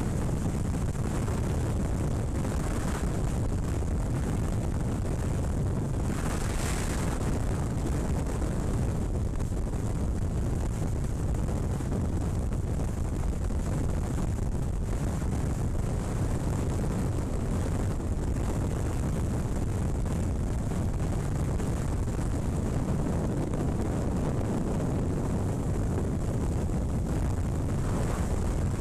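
Steady rush of wind buffeting the microphone of a camera on a motorcycle travelling at motorway speed, with the engine and tyre drone underneath. A brief louder hiss swells about seven seconds in.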